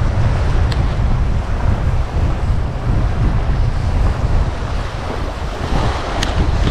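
Strong wind buffeting the microphone, with ocean surf washing on the beach behind it. Two faint short ticks, one about a second in and one near the end.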